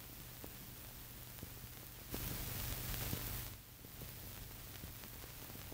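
Steady hiss and low hum with scattered faint clicks, the noise of an old recording rather than any street sound. About two seconds in, a louder rush of hiss lasts about a second and a half, then drops off briefly.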